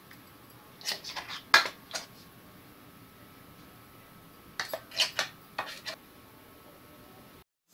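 A steel spoon scraping and clinking against the inside of a stainless-steel mixer-grinder jar as thick coconut chutney is scooped out. The clinks come in two short clusters, about a second in and again around five seconds in.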